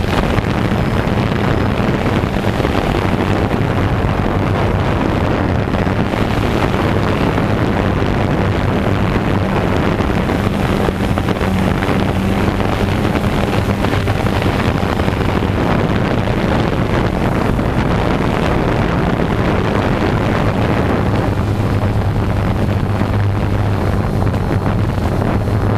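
DJI Phantom 2 quadcopter's electric motors and propellers running steadily in flight, heard through the camera mounted on the drone. A steady hum sits under a rush of propeller wash on the microphone, and the hum grows stronger in the last few seconds as the drone comes down to head height.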